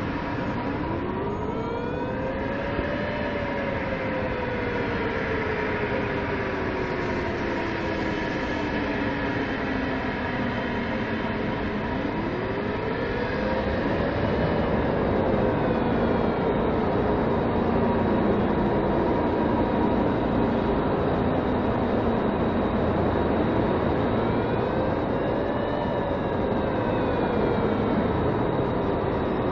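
A steady rumble with a siren-like wail over it that rises quickly and then falls slowly, three times, about every twelve seconds; a faint steady hum runs underneath.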